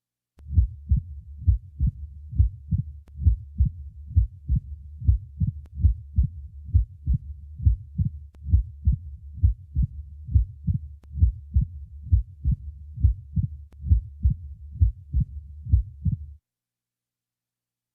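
Recorded heart sounds heard through a stethoscope: a regular heartbeat of low thuds, about two a second, over a steady low background. It starts about half a second in and stops about two seconds before the end.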